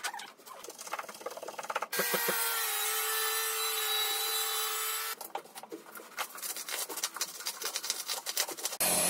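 Rough scraping and rasping of a tool cutting a groove into a plaster wall. About two seconds in, a power tool runs steadily for about three seconds, then the scraping resumes. A different steady machine sound starts abruptly just before the end.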